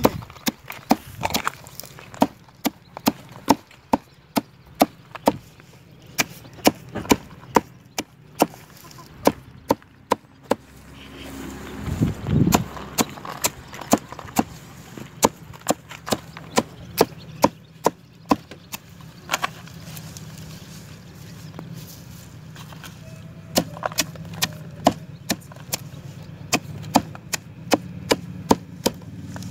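Small hatchet chopping a pile of leafy greens on a wooden block: a long run of sharp chops at about two a second, the blade knocking through the leaves into the wood. A pause near the middle holds a brief low rumble.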